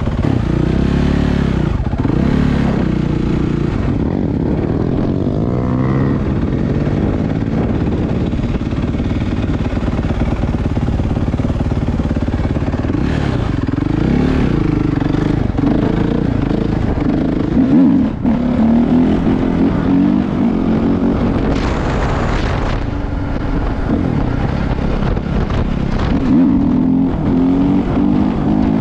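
Suzuki 450 dirt bike's single-cylinder four-stroke engine running while being ridden, its pitch rising and falling as the throttle is opened and eased off.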